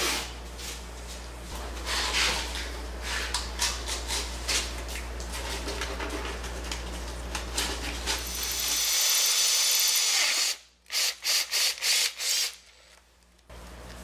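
Drilling and tapping a hole in a Vortec 4200 engine's main-bearing girdle: repeated scraping and clicking of tools on metal, a drill running briefly a little past the middle, then a few quick sharp clicks.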